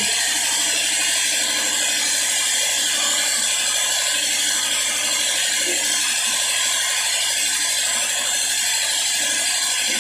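Steady, even hiss that does not change, with faint scratching from a marker writing on a whiteboard beneath it.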